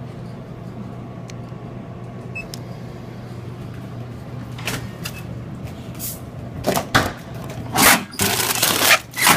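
Snack vending machine dispensing a bag of Cheetos: a low steady hum with a few light keypad clicks, then, in the last few seconds, loud knocks and rattles of the delivery flap and the crinkling chip bag as it is pulled out.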